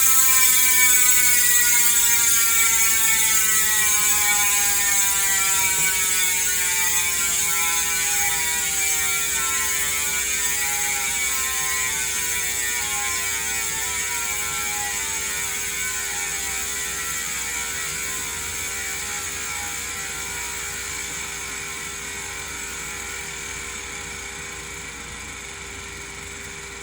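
Industry Nine Hydra rear hub freewheeling as the spun wheel coasts: the pawls' ratcheting buzz falls steadily in pitch and fades as the wheel slows. The freehub has just been cleaned and given a light coat of grease.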